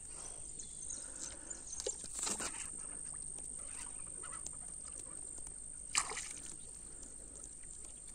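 Quiet lakeside background with a faint steady high-pitched tone, a few small handling clicks, and one sharp knock about six seconds in.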